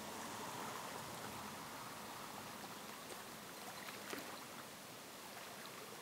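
Shallow forest stream flowing over rocks: a steady rush of running water, with a few faint ticks about three to four seconds in.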